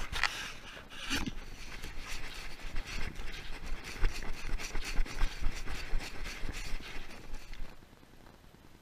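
Rubbing and scraping noise against a camera being carried about by a dog, with many irregular knocks and clicks. It drops to a faint level near the end.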